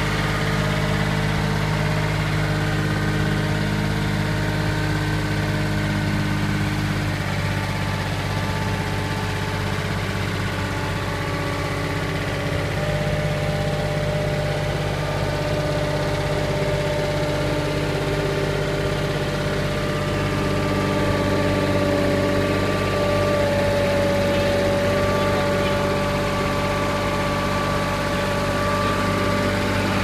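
Thomas 85 skid steer's engine running at a steady speed while the machine drives up a short flight of steps, its pitch shifting slightly a few times.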